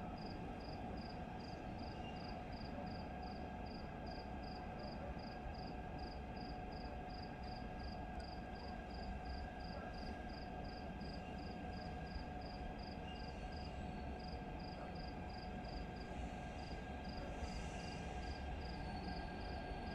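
A cricket chirping steadily, about two or three high chirps a second, over a steady hum and a low background rumble.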